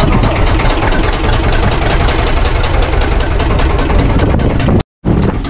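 Fishing boat's engine idling with a steady, rapid knocking beat, mixed with wind on the microphone. The sound cuts out for a moment near the end.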